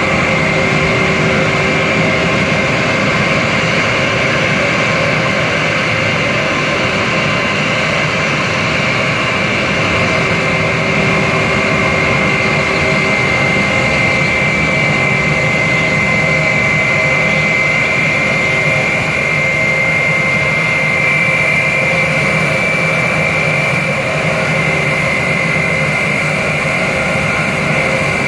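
Airbus A320's IAE V2500 turbofan engines running at idle while the airliner taxis, a steady high-pitched whine over an even rushing noise.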